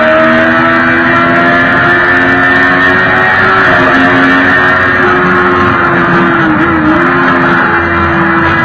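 Sport motorcycle engine running at a steady cruising speed under wind rush. Its pitch dips briefly about two-thirds of the way through, then holds steady again.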